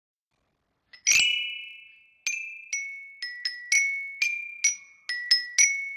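Intro jingle of high, bell-like struck notes. The loudest note, with a short low whoosh under it, comes about a second in and rings out slowly. After that the notes come at uneven steps of about half a second, each fading before the next.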